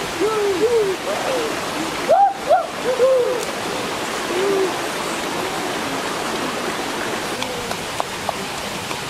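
Shallow rocky stream flowing steadily, with a run of short rising-and-falling calls in the first few seconds and a few light taps near the end.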